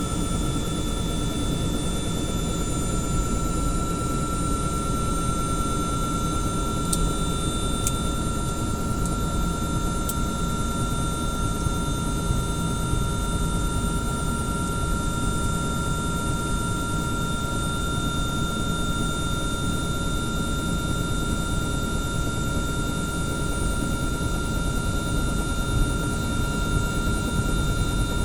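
Bell 505 helicopter heard from inside the cabin, its turboshaft engine running steadily. A high turbine whine creeps up very slightly in pitch over a low rumble, with a few faint clicks about seven, eight and ten seconds in.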